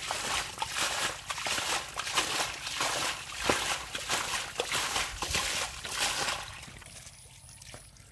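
Many stinging catfish thrashing in shallow muddy water: a dense crackle of small splashes and slaps that dies down to a faint trickle about six seconds in.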